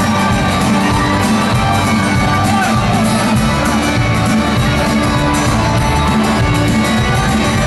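A rock band playing live, with electric and acoustic guitars and drums, loud and steady throughout, recorded from within the audience in a large hall.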